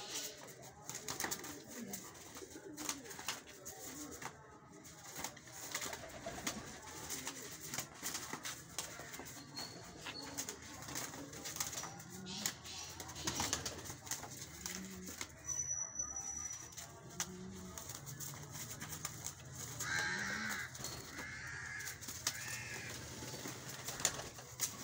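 Pigeons cooing, low and repeated, with short flutters and scuffs as a lotan roller pigeon tumbles over and over on a concrete floor.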